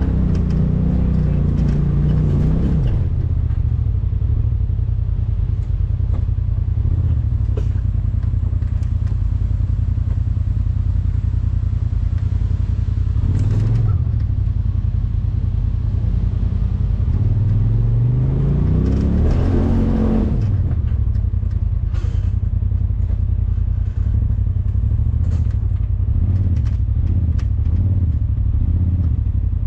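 A Polaris RZR side-by-side's engine running under load. It eases off about three seconds in and revs up in a long rising pitch around seventeen to twenty seconds in before letting off. Scattered clatter of the machine working over rough ground comes through the later part.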